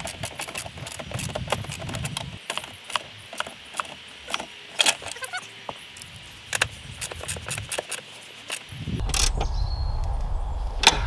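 Irregular clicks and knocks of a hand tool working a bucket seat's mounting bolt as it is done up tight by hand. A low rumble sets in near the end.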